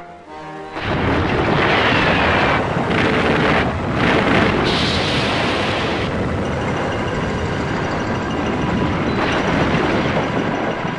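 A film sound-effect explosion: about a second in, a loud blast sets in and carries on as a long rushing roar with several surges, over faint music.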